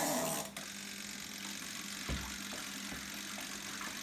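Costway mini twin-tub washing machine running with a steady motor hum and a few faint ticks as it drains its water out through the pipe, after a short louder rush at the very start.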